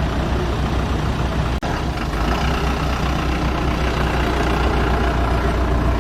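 Diesel engine of the Asa Kaigan Railway DMV, a converted microbus, running steadily with a deep low rumble. A very brief dropout in the sound comes about a second and a half in.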